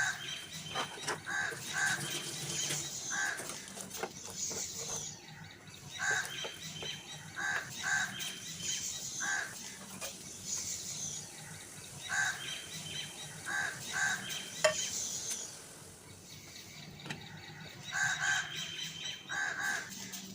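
Birds calling: short repeated calls, often in pairs, with higher twittering between them.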